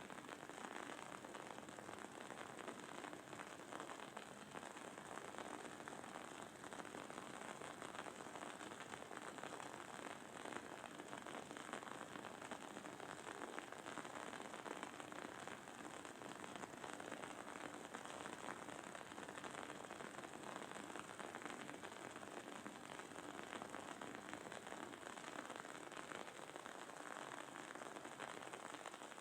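Wooden candle wick crackling steadily as it burns: a faint, dense stream of tiny pops over a soft sizzle.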